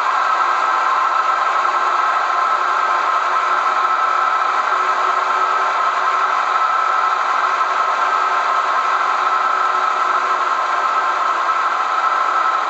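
Recorded diesel engine sound of a class 298 diesel locomotive playing steadily at idle from a model locomotive's DCC sound decoder through its small onboard speaker, thin and without deep bass.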